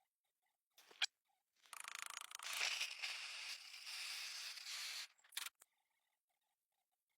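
A click, then a rough scraping hiss lasting about three and a half seconds, and two short scrapes just after it: the sound of restoration work on the machine.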